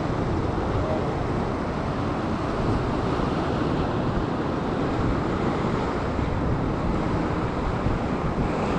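Ocean surf breaking and washing over a sandstone rock ledge, a steady rushing wash, with wind buffeting the microphone.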